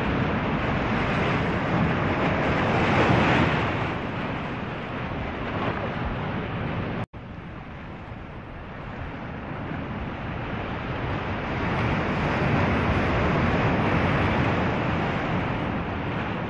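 Ocean waves and wind, a rushing noise that swells and eases, breaking off for an instant about seven seconds in.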